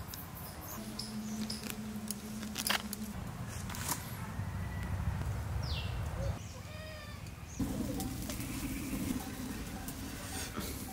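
Birds chirping and calling over outdoor background sound, with a quick falling chirp and then a short run of repeated calls about six to seven seconds in.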